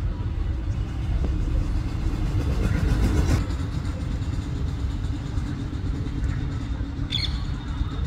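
Steady low rumble, with a short high-pitched chirp about seven seconds in.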